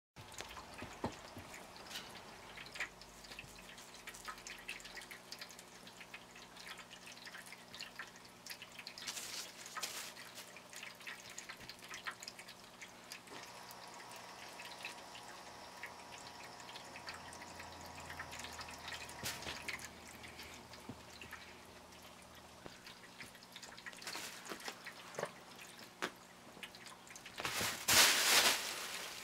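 Crinkle tunnel rustling and crackling as cats paw at it and move through it, in many small scattered clicks and rustles. Near the end a much louder burst of crinkling comes as a cat pushes into the tunnel.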